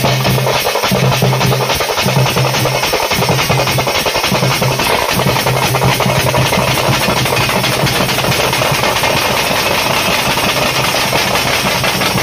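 Procession drum troupe playing fast, dense rhythms on slung double-headed drums beaten with sticks, with hand cymbals clashing along. A steady low hum sits beneath the drumming, breaking off and returning several times.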